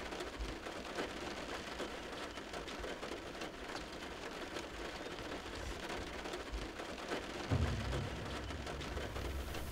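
Steady rain pattering, a dense hiss of many small drop ticks. A low rumble comes in about three-quarters of the way through and carries on.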